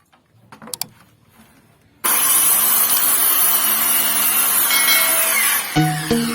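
A few faint knocks, then about two seconds in a woodworking power tool starts abruptly cutting teak with a steady, loud noise for several seconds. Music with plucked notes comes in near the end.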